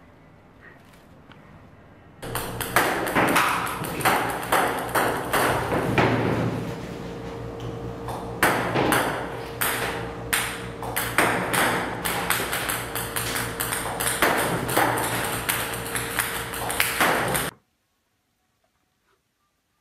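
Table-tennis ball robot firing balls that click sharply against the table and net in quick, irregular succession over a steady hum. It starts about two seconds in and cuts off suddenly near the end.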